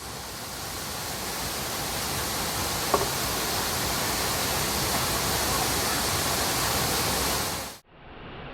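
Waterfall, a steady dense rush of falling water with a brief sharp sound about three seconds in. Near the end it cuts abruptly to a quieter, duller rush.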